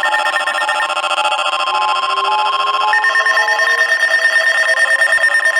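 Emergency alert tones from weather radio receivers: several steady electronic tones sounding together, with a repeating beep pattern on top and a faint slowly rising tone beneath, the pattern shifting about three seconds in. They herald a new severe thunderstorm warning.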